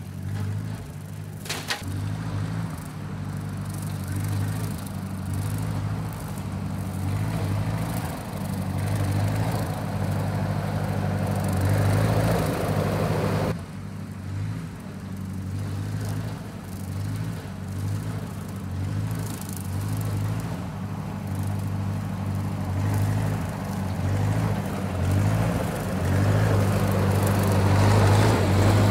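Ford 641 Workmaster tractor's four-cylinder gasoline engine running under load with its brush hog mower engaged, the level rising and falling unevenly and growing louder as it comes close near the end. The engine still surges under load, though less than before its Marvel Schebler carburetor's idle and main jet screws were reset to their initial settings.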